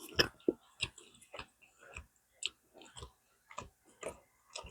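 A person chewing crunchy food close to the microphone: a run of short, irregular crunches and mouth clicks.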